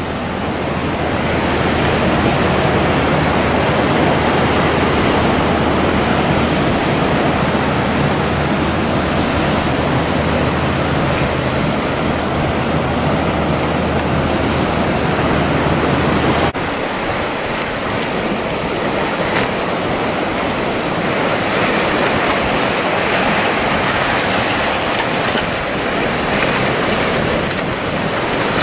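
Rough sea water churning and breaking in the harbour channel, with wind on the microphone. A steady low hum runs underneath until it cuts off abruptly about halfway through.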